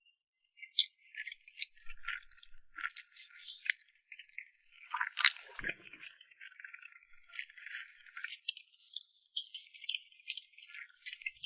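Close-miked mouth sounds of someone eating soft cake: a run of wet squishing, smacking and chewing clicks, with one sharper click about five seconds in.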